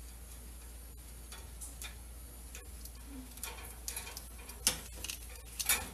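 Metal cooking utensil clicking and scraping against the wire rack of an electric grill as pork steaks are turned, a few scattered light clicks at first, then louder, closer clicks in the second half.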